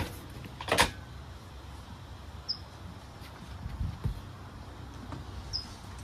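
A thump and then a short, louder clatter from the squat rack and bench as a lifter handles them, with a few small knocks after. A bird gives a short high chirp about every three seconds.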